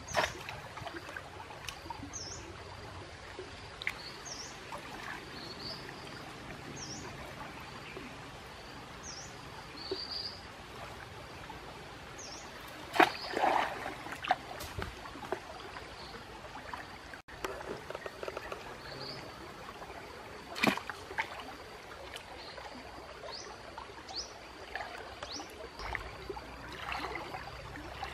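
Water sloshing and stick prodding among roots and leaves at a stream bank: rustles, knocks and splashes, the loudest about halfway through and another about two-thirds in, over a steady outdoor hiss. A bird repeats a short high chirp every second or two.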